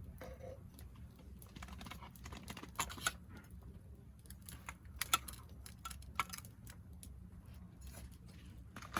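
Irregular light clicks and taps of small objects being handled, a few sharper knocks among them, over a faint low background rumble.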